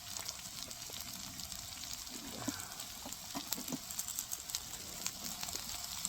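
Onions, mushrooms and garlic frying in butter in a pan: a steady sizzle with scattered small crackles and pops.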